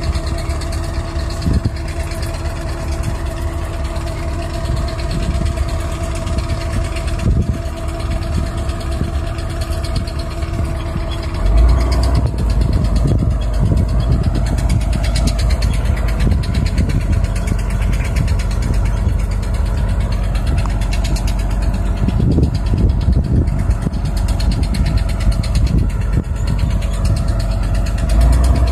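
Caterpillar 320 hydraulic excavator's diesel engine running steadily, with a dump truck's engine alongside. About eleven seconds in, the sound becomes louder and deeper and stays that way.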